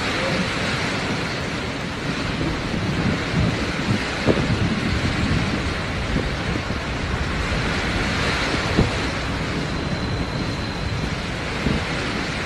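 Severe storm wind and driving rain: a steady rushing noise with gusts buffeting the microphone, and a couple of brief thumps about four and nine seconds in.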